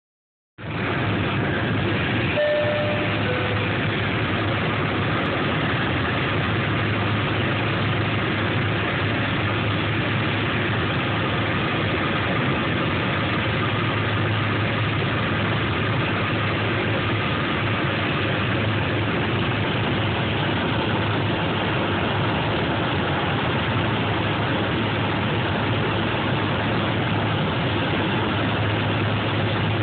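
Steady drone of engines and rushing air inside the cabin of a small high-wing aircraft on its landing approach, with a strong low hum underneath. It starts suddenly about half a second in and holds level without a break.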